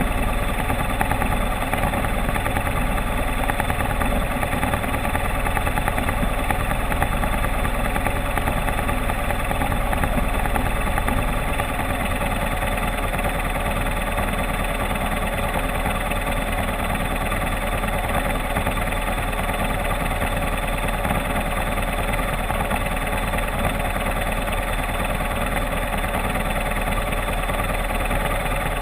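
Motorcycle engine running steadily, holding an even pace with no revving up or down.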